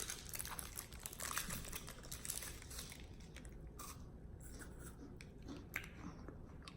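Biting and chewing a crunchy white-chocolate-covered wafer snack: dense crackling crunches for about the first three seconds, then fainter, scattered crunches and clicks, with one sharp click near the end.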